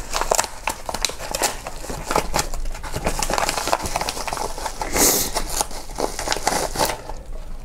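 Crinkling and rustling of a yellow paper mailer envelope as it is opened and a hand reaches inside, with many small crackles and a louder rustle about five seconds in.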